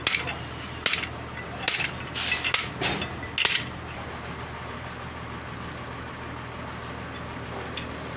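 Several sharp metallic knocks and clinks of tools on metal parts in the first few seconds, then only a steady low hum.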